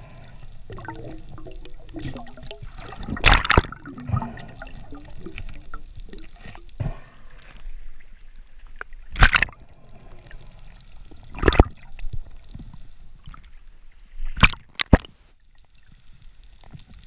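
Muffled water sloshing and gurgling heard through an underwater camera housing, broken by about five sharp knocks, two of them close together near the end.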